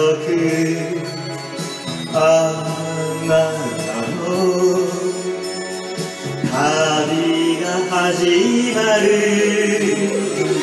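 A late-1970s Japanese folk-pop ballad recording playing: band backing with long held notes.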